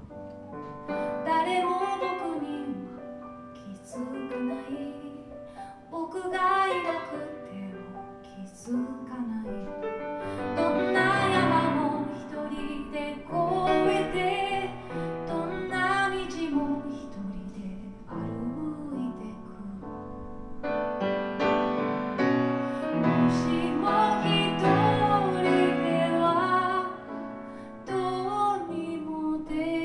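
A woman sings live with piano accompaniment, in phrases that swell and fall. Deeper bass notes join about ten seconds in and fill out the sound.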